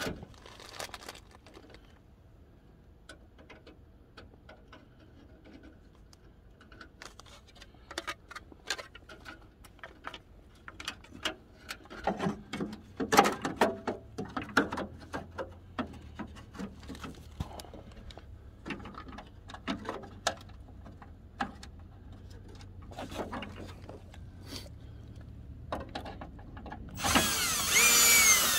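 Scattered clicks and knocks as an LED headlight and its mounting ring are handled and fitted into a pickup's headlight opening. Near the end a cordless drill starts, its motor whine rising and falling as it drives the headlight's screws.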